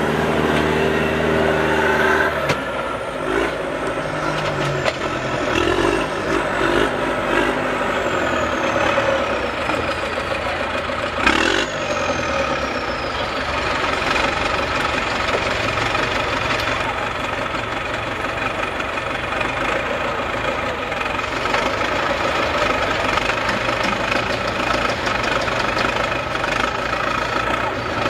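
Heavy engines idling steadily: the mud truck's big-block Ford 460 V8 and the log skidder's engine, with one sharp knock about eleven seconds in.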